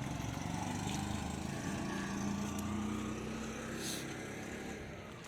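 A motor vehicle's engine running close by, loudest around the middle and fading toward the end as it passes.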